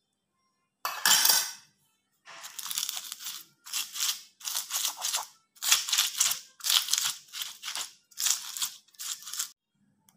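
Stone pestle grinding bird's-eye chilies and salt on a flat stone mortar (cobek and ulekan): gritty crushing scrapes. One comes about a second in, then a steady run of about eight strokes, roughly one a second.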